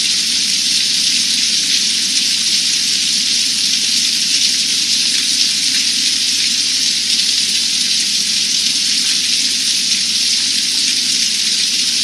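Hard rain falling steadily on open water, a loud, even downpour that does not let up.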